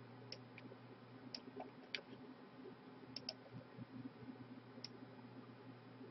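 Computer mouse clicking, about seven faint sharp clicks at irregular intervals, some in quick pairs, over a faint steady low hum.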